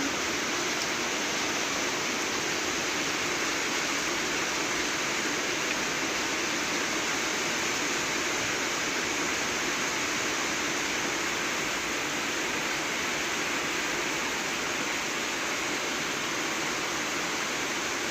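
Steady rain falling, an even hiss that holds constant with no single drops or thunder standing out.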